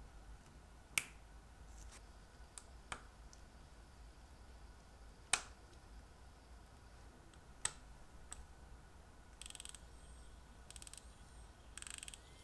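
Small sharp metallic clicks of steel tools and parts on a Rolex calibre 3135 watch movement as its keyless works and winding stem are fitted, a few single clicks spread apart. Near the end come short runs of rapid fine clicking.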